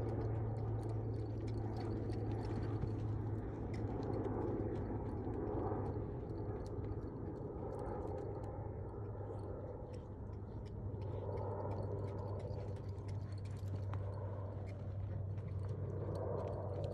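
A horse loping on a sand arena, its hoofbeats thudding dully in the sand, over a steady low hum and rushing noise that is the loudest thing throughout.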